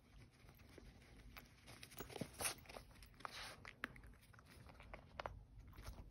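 Dachshund puppy foraging in a fleece snuffle mat: faint, scattered rustles and clicks, with bites and crunches as it finds and chews treats.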